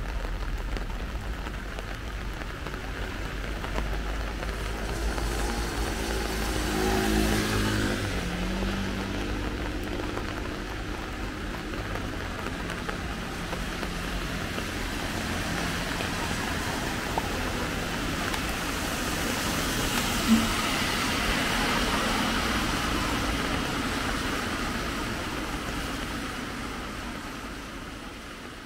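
Traffic and rain on a wet city street. About a quarter of the way in, a vehicle engine passes with its pitch dropping as it goes by; past the middle, tyre noise swells again with another passing vehicle. The sound fades out near the end.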